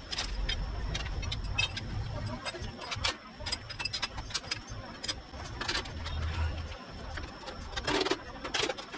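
Steel bars clinking and knocking as they are laid and positioned on a perforated steel welding table: scattered sharp metal clicks, with a heavier clunk near the end, over a low hum.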